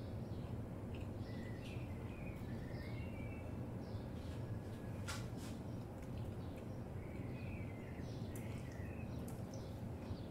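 Birds chirping in short scattered calls over a steady low background rumble, with one sharp click about five seconds in.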